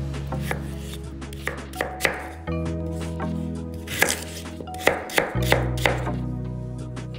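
Kitchen knife chopping vegetables on a cutting board: irregular sharp strikes, several clustered near the middle and toward the end, over background music.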